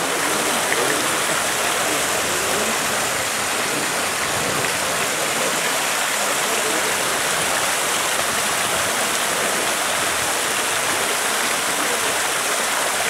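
A fountain's falling water splashing steadily, without a break.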